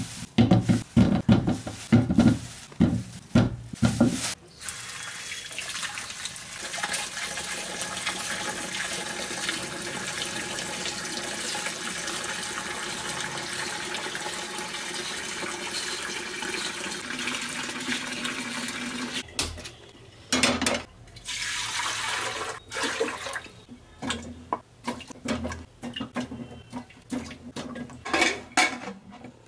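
Water from a kitchen tap running steadily into a pan in a steel sink while potatoes are rubbed clean by hand. The pan and potatoes knock and clunk in the first few seconds and again near the end.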